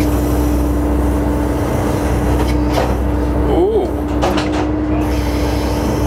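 A fishing boat's engine and deck machinery running steadily, a low rumble with a constant hum. A short squeak rises and falls about three and a half seconds in.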